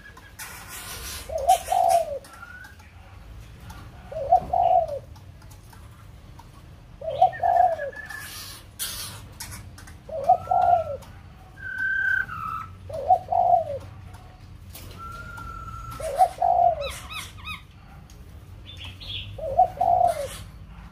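A dove cooing: a low two-part coo repeated about every three seconds, seven times, with short higher whistled notes from other birds and a few brief rustles between the coos.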